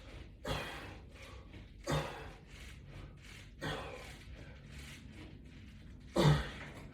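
A man's sharp exhalations as he works through standing pulls against resistance bands, four breaths about one and a half to two and a half seconds apart; the last one is the loudest and has some voice in it.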